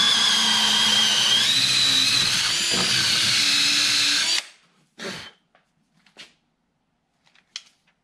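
DeWalt cordless drill boring a hole through a wooden board with a Speedbor spade bit, running with a steady high whine that rises slightly partway through, then stopping after about four and a half seconds. A few short, faint knocks follow.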